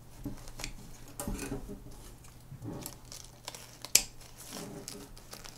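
Scissors snipping among dry sphagnum moss and roots at the base of a staghorn fern, with scattered crackling and rustling and one sharp click about four seconds in.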